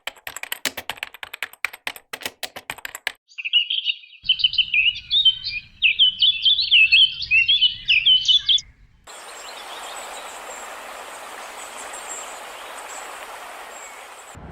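Rapid clicking for about three seconds, then a small songbird singing a quick twittering song of chirps sliding up and down, then a steady hiss of outdoor background noise from about nine seconds in.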